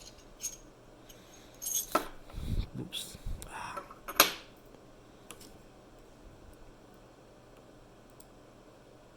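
Small metal lock pins and tools clinking and clattering on a hard surface while the lock is taken apart: a few light clicks, then a cluster of clinks, with the sharpest one about four seconds in.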